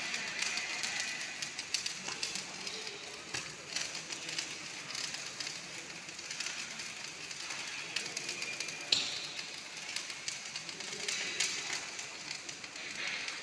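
MIG welding arc crackling steadily, a dense sizzle of rapid tiny snaps.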